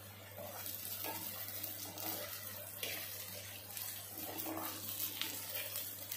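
Chopped onions, garlic and ginger sizzling steadily in oil in a clay pot as they are sautéed, with a wooden spoon stirring and scraping through them against the clay.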